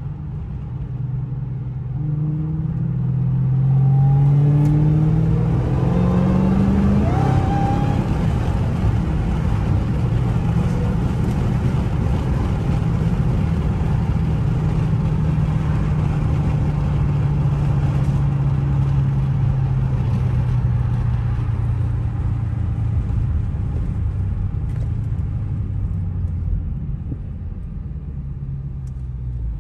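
Supercharged 6.2-litre HEMI V8 of a Dodge Challenger Hellcat Redeye under full acceleration, the revs climbing in steps through several upshifts over the first seven seconds or so. It then holds a steady loud drone at high speed, easing slightly lower in pitch toward the end.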